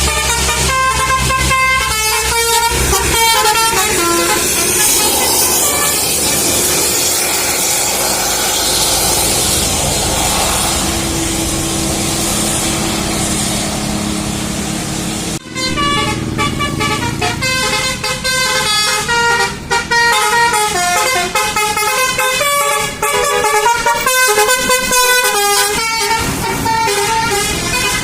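Indonesian bus 'telolet' multi-tone air horns playing quick melodies of stepped notes. In the middle stretch the horn gives way to bus engine and road noise, and after an abrupt cut the horn tunes start again and run on to the end.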